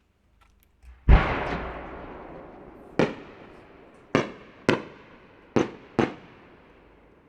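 Aerial firework shells bursting. One big boom about a second in, with a long echoing fade, then five sharper bangs over the next three seconds.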